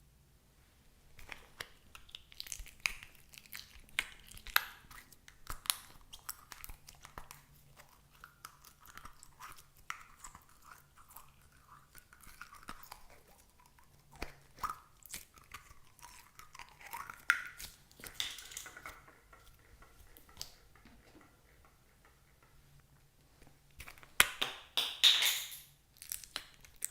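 Slime being squished and worked by hand, giving a string of sticky, crackling clicks and wet pops. A louder, denser flurry of crackling comes near the end.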